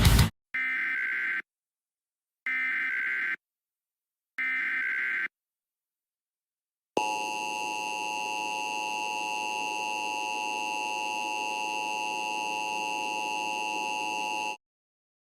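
Emergency Alert System alert tones: three short bursts of warbling SAME header data, about a second apart, then a steady attention signal of several held tones lasting about seven and a half seconds and cutting off sharply. A moment of heavy metal music cuts off at the very start.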